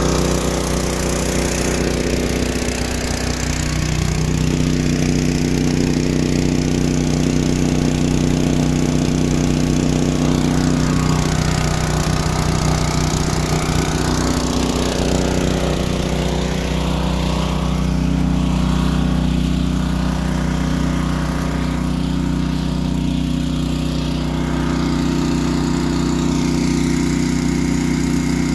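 Small gasoline engine of a portable water pump running steadily, pumping rainwater out of a freshly dug pond through its suction hose.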